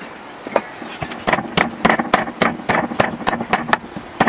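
Cleaver chopping raw beef ribs and bone on a wooden chopping block: one chop, then from about a second in a quick run of sharp chops, about four a second.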